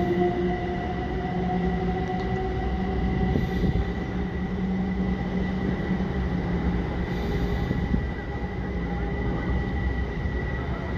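Passenger multiple-unit train running past and away along the track below, a steady rumble of wheels on rail with several steady whining tones over it, easing slightly toward the end.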